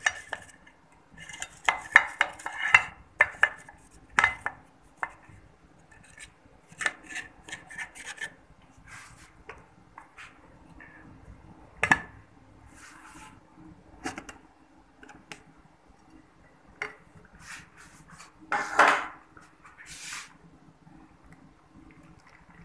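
A metal knife scraping and clicking around the inside of a metal springform cake pan to loosen the baked cake's edges, with dense clicks at first. Later come scattered clinks and knocks of ceramic plates being handled as the cake is turned out, and one louder scrape near the end.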